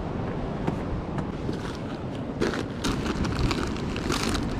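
Wind buffeting the camera microphone in a steady low rumble, with ocean surf behind it. Three short hissing rushes come through, around the middle and near the end.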